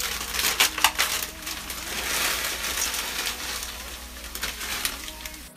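Dry stuffing-mix cubes poured from a crinkling bag into a saucepan of boiling liquid: a stream of small clicks and rattles over rustling, which cuts off suddenly near the end.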